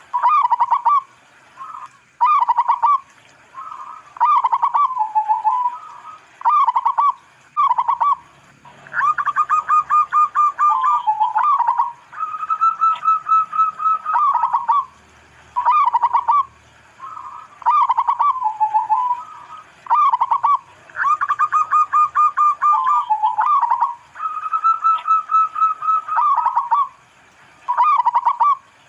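Zebra dove (local perkutut) cooing: phrase after phrase of short, trilled coos around one pitch. Twice a rapid run of stuttering notes leads into a longer held coo, and the sequence repeats about every twelve seconds.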